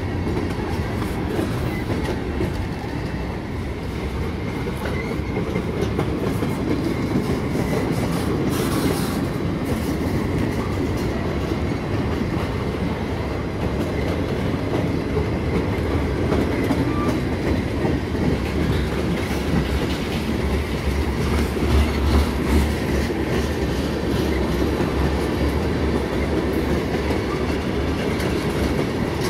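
Freight train cars rolling past close by: a steady rumble of steel wheels on the rails, briefly heavier about two thirds of the way through.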